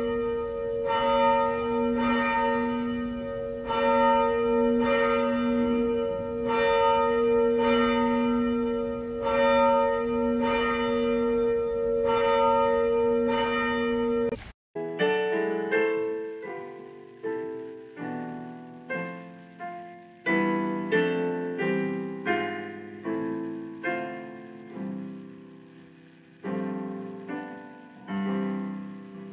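A church tower bell tolling in steady, evenly repeated strokes, the same note each time. About halfway through it cuts off abruptly and gentle piano music takes over, a slow melody of single notes.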